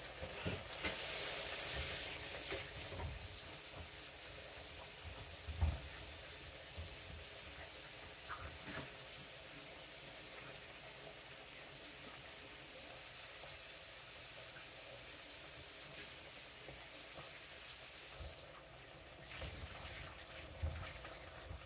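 Chicken party wings frying in oil in a skillet: a steady sizzle under a rushing hiss that cuts off abruptly near the end, with a few soft knocks.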